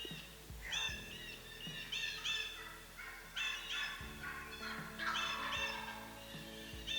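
Wild turkey calling in repeated quick runs of short, high notes, a cluster every second or so.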